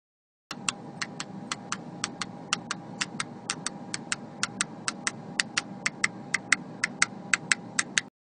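A quick series of sharp clicks, about four a second and slightly uneven, over a steady faint hum. It starts suddenly about half a second in and cuts off just before the end.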